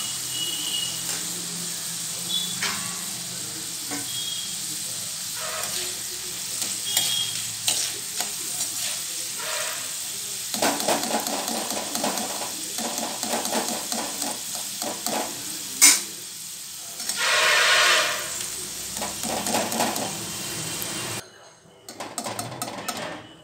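Chana dal deep-frying in hot oil in a kadai, a steady sizzle, while a perforated metal skimmer scrapes and clinks against the pan as the browned dal is scooped out. There is a sharp click and then a louder rush of sizzle and scraping about three-quarters through, and the sound cuts off suddenly near the end.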